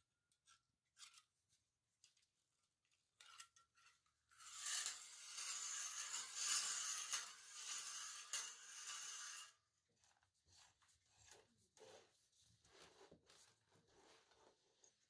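Flat steel sewer rod scraping as it slides through the sewer cleanout opening: a few faint clicks, then about five seconds of steady scraping, then lighter, scattered scrapes and clicks.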